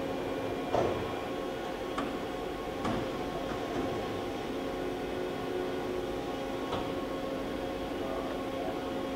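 Makino MC86 horizontal machining center running: a steady machine hum with several fixed tones, broken by a few short clunks and clicks, the loudest about a second in.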